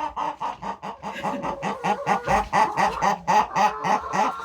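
A flock of laying hens clucking and calling loudly, many birds at once with overlapping calls several times a second.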